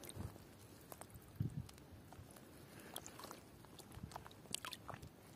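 Faint, scattered small clicks, soft thumps and little water splashes as a nylon gill net is handled at the water's surface.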